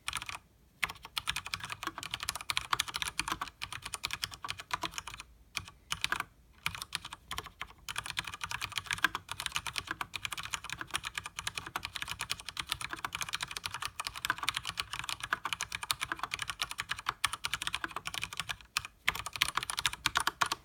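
Fast continuous typing on a Leopold FC900R mechanical keyboard with Cherry MX Speed Silver linear switches and double-shot PBT keycaps: a dense run of key clicks and keycap clacks, broken by a few brief pauses, that stops at the end.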